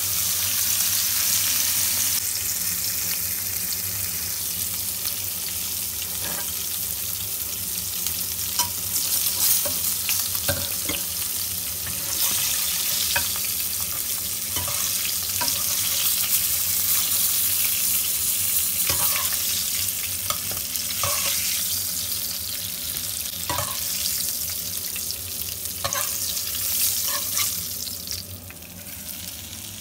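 Fish pieces frying in shallow oil in a pan: a steady sizzling hiss with scattered small pops and crackles, easing off a little near the end.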